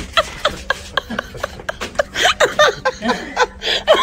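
Several people stifling laughter in short, quick snickers and giggles, with brief clicks from the phone being handled.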